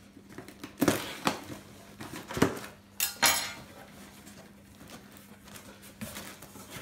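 Knife slitting packing tape on a cardboard box, with a few sharp scrapes and knocks in the first three and a half seconds, then quieter rustling as the box flaps are opened.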